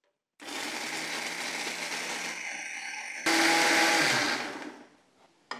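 Electric mixer grinder (Indian mixie) running with a steel jar of coconut, cumin and green chillies, grinding them into a coarse chutney-like paste. It starts about half a second in, jumps louder about three seconds in, then winds down and stops near the end.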